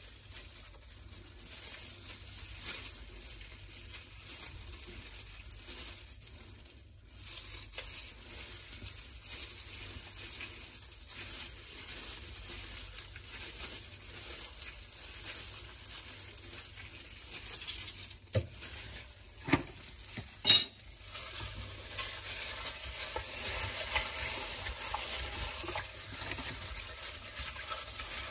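Plastic-gloved hands rubbing raw chicken with lemon halves and a metal spoon in a glass bowl: a steady wet rubbing and rustling of the gloves. About two-thirds of the way through come three sharp knocks, the last the loudest.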